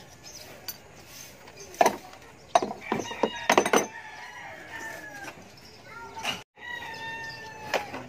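A rooster crowing twice, each crow one long call falling slightly in pitch. A few sharp knocks come just before and during the first crow and are the loudest sounds.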